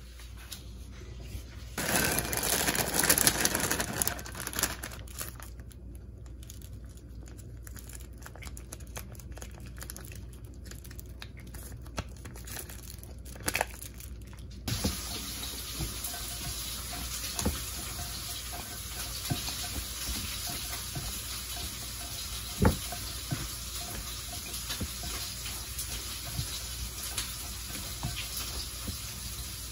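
Kitchen food-prep sounds: a loud rushing noise for about two seconds near the start, then scattered clicks. In the second half, light scrapes and clicks of a spatula tossing coleslaw in a glass bowl over a steady hiss, with one sharp tick.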